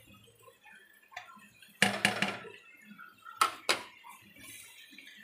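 Sharp clicks as a gas stove's burner knob is worked: a faint one about a second in, a quick loud cluster about two seconds in, and two more about a second and a half later.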